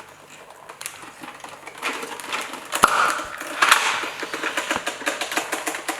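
Rapid, irregular clicking and clattering of small hard plastic pieces being handled, growing busier about two seconds in, with one sharper click near the middle.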